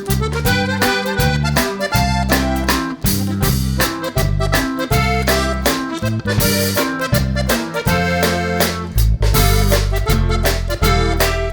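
Background music: an accordion-like melody over a steady beat and bass line.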